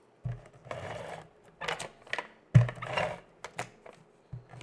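Adhesive tape runner drawn across cardstock in three or four short strokes, with a sharp knock on the table about two and a half seconds in.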